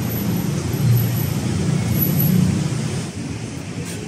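Road traffic: the steady engine and tyre noise of passing vehicles, heavy for the first two or three seconds and easing off after that.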